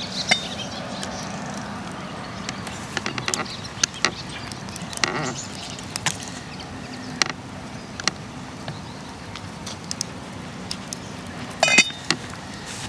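Scattered clinks and knocks of a metal spoon and the enamel pot and lid as the pot of boiled pelmeni is taken off the fire and a dumpling is scooped out, with a louder ringing clink near the end.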